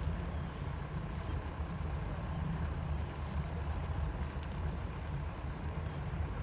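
Steady low engine rumble of a small fishing boat running while it manoeuvres alongside the quay, over a general hiss of harbour background.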